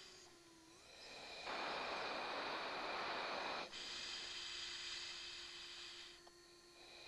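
Fighter pilot's breathing picked up by the oxygen-mask microphone on the cockpit intercom. There is a long hissing breath about a second and a half in, lasting about two seconds, and another begins near the end, over a steady low hum and a high whine.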